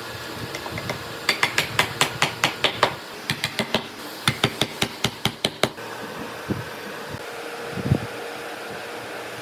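Two runs of quick, sharp knocks, about six a second, like rapid hammer or mallet taps on wood, over a steady fan-like hum, with one duller thump near the end.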